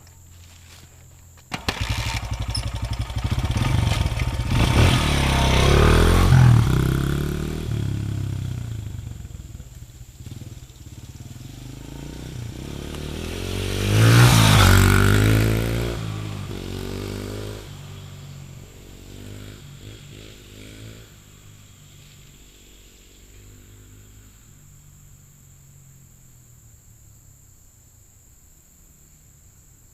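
Honda CRF100F dirt bike's single-cylinder four-stroke engine, through its stock exhaust end cap, revving hard as the bike pulls away about a second and a half in. It passes close twice, its pitch rising and falling, then fades into the distance near the end.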